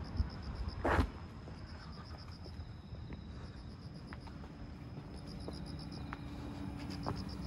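Insects chirping in repeated short trains of rapid high pulses, over a steady low rumble. A single sharp knock sounds about a second in.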